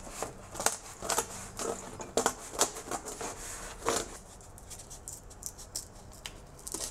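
Knife blade cutting through corrugated cardboard in short, irregular crisp strokes, thick for the first four seconds or so, then fewer and lighter as the cardboard is handled.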